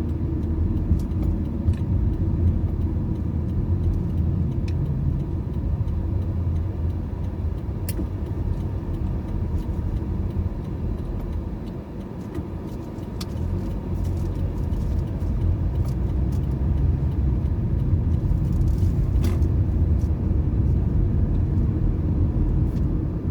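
Car driving, a steady low rumble of road and engine noise with a few faint light clicks. It dips briefly about twelve seconds in and cuts off suddenly at the end.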